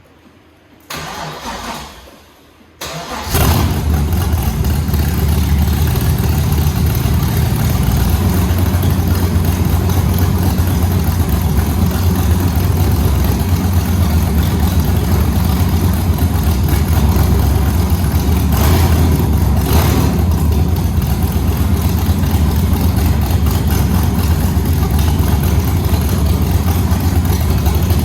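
LS3 V8 in a Holden VX Commodore cranking briefly, catching about three seconds in, then idling loudly and steadily.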